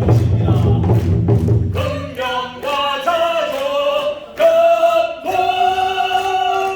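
Korean buk drums beaten in a steady rhythm under singing. About two seconds in the drums stop and the singing goes on alone with long held notes, ending on one sustained note.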